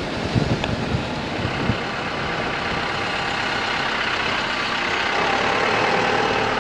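Engine of a safari canter (an open-top minibus) running steadily, with a few low knocks early on and its engine note growing slightly louder toward the end.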